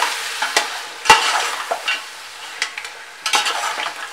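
Mutton, yogurt and green chillies frying in ghee, sizzling as a perforated steel skimmer stirs and scrapes them around a metal pot. Several sharp knocks of the spoon against the pot cut through the sizzle, the loudest about a second in. This is the bhuna stage, where the mutton is fried until the yogurt's water dries off.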